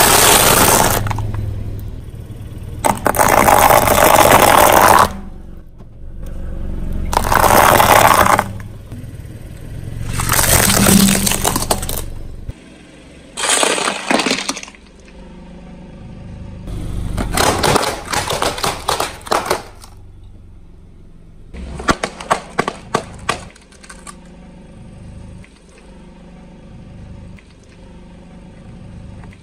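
A car tyre rolling over and crushing a string of objects on concrete: several loud crunching, breaking bursts of a second or two each, then clusters of sharp cracks and crackles after the middle, going quieter near the end.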